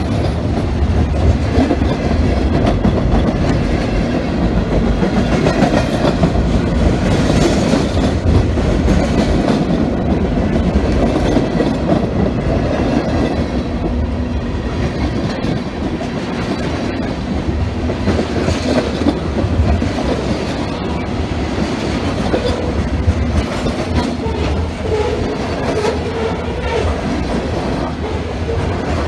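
Freight train cars rolling past close by: the loud, steady noise of steel wheels running on the rails.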